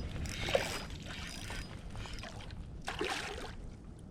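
Water splashing as a hooked fish thrashes at the surface while being reeled in, in two swells, over a low rumble of wind on the microphone.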